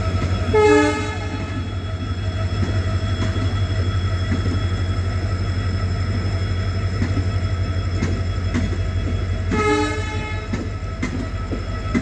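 Steady low hum of a WDP-4D (EMD) diesel locomotive hauling a departing passenger train, with the coaches rolling past and faint clicking of wheels over rail joints. Two short horn blasts sound, about a second in and again near the end.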